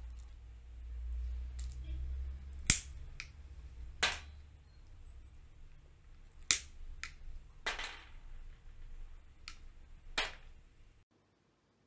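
Pistachio shells cracking open in the jaws of a pair of pliers: a sharp crack every second or two, with fainter clicks between, over a low hum in the first half.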